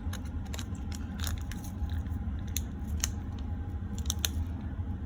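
Instant ramen seasoning packet crinkling as it is emptied into the cup: a string of irregular sharp crackles and clicks over a steady low hum.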